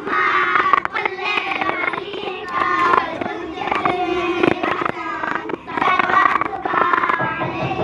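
A group of children singing together in short phrases, with scattered hand claps.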